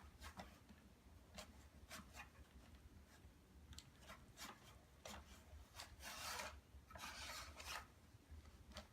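Faint scraping and clicking of plastic Play-Doh toy parts being handled, with a few short clicks and two longer scrapes about six and seven seconds in.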